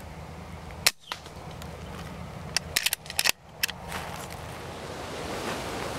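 A single sharp shot from a silenced .22 BSA Superten air rifle about a second in, then a quick run of clicks and knocks a couple of seconds later. Gusty wind on the microphone grows louder near the end.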